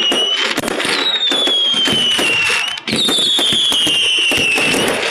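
Fireworks display: a dense run of bangs and crackling. Over it come long whistles that fall in pitch, one ending just after the start and two more starting about one and three seconds in. The sound is flattened by a phone that overcompresses audio.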